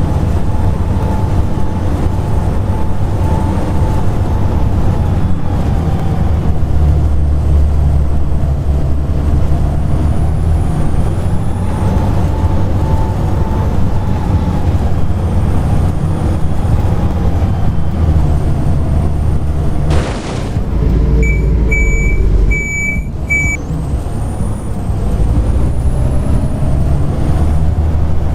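Volvo B7TL bus's six-cylinder diesel running with a loud, vacuum-cleaner-like 'hoover' whine that wavers with speed. About 20 s in there is a short hiss of air, then a run of short electronic beeps as the engine settles to a low idle.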